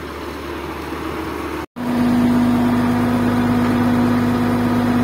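Diesel engine of a Komatsu D85PX bulldozer running steadily at close range, with a strong, unchanging hum. Before a brief dropout less than two seconds in, fainter engine noise from idling heavy machinery is heard.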